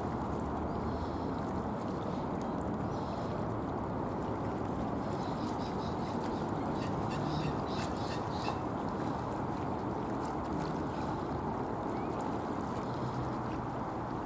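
Birds calling over a steady rumbling background noise, with a quick run of short, high calls about five to eight seconds in.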